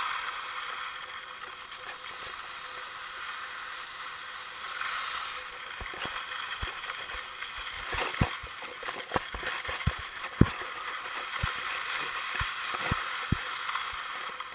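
Steady hiss of something sliding fast over snow. From about six seconds in it is broken by many sharp clicks and knocks, as if over bumps.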